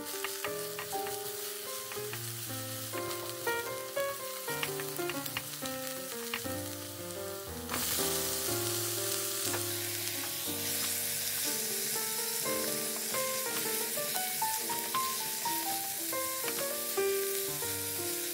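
Chopped green onion and minced garlic sizzling in oil in a hot frying pan, with small crackles; about eight seconds in the sizzle grows much louder as halved cherry tomatoes are added and stir-fried. Light background music plays throughout.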